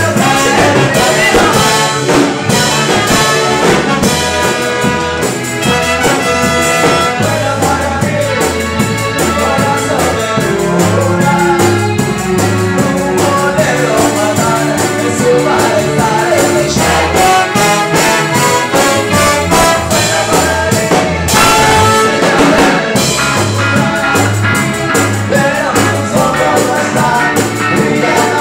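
A live band playing a rock en español / reggae-style song: keyboard and electric guitars over a steady, repeating bass beat, with a singer at the microphone.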